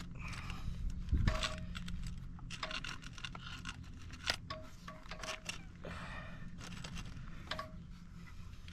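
A hand grease gun being worked on a grease zerk: irregular metal clicks, scrapes and rattles, several with a short squeak, as grease is pumped into the fitting.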